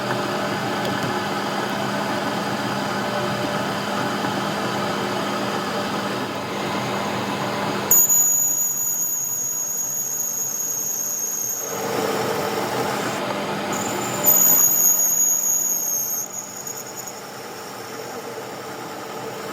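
A steady mechanical hum, then two piercing high-pitched squeals of a few seconds each, both starting suddenly. The second is a couple of seconds after the first.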